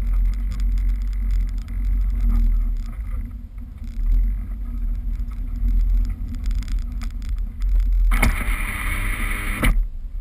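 Rover 214 driving and sliding through powder snow, heard from a camera on the outside of the car: the engine runs under a heavy, steady wind rumble on the microphone. About eight seconds in, a much louder rushing burst lasts under two seconds, then cuts off.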